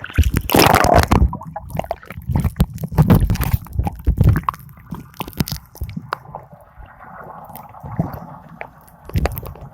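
Water sloshing and gurgling close to the microphone, with many irregular splashes and knocks, heaviest in the first half; after about five seconds it calms to a faint steady hum with scattered drips.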